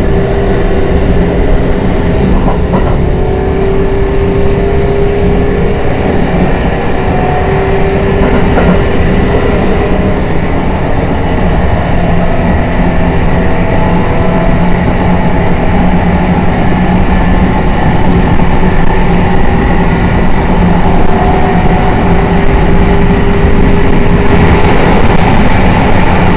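Kintetsu 1233 series train running, its Hitachi GTO inverter drive giving off several held tones that drift slowly in pitch over the rumble of the wheels on the rails. This is the unusual noise that some cars of this series develop.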